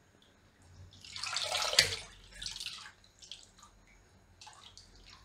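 Wire-mesh strainer scooping raw potato slices out of a bowl of water: a splashing scoop about a second in, a smaller splash after it, then water dripping back into the bowl.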